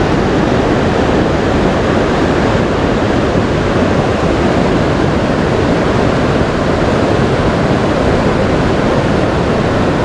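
Fast-flowing river water rushing over a riffle: a loud, steady rush with no breaks.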